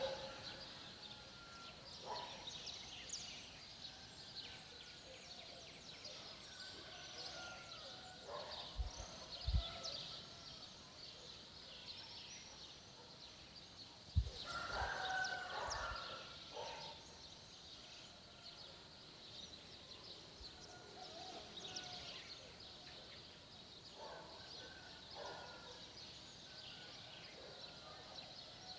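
Birds singing: a dense scatter of small, high chirps throughout, with lower, louder calls every few seconds, the strongest about halfway through. A few soft low thumps fall around the middle.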